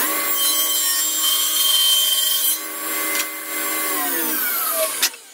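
Table saw running at full speed and ripping through a board along its fence. About four seconds in it is switched off and its motor note falls as the blade winds down, with a sharp knock near the end.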